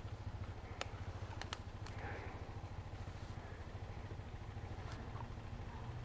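A vehicle engine running steadily, a low pulsing rumble, with a few faint clicks over it.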